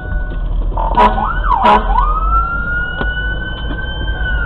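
Fire engine siren starting up: a couple of quick up-and-down sweeps about a second in, then a wail that rises, holds high, and begins to fall near the end, over the steady low drone of the truck's engine.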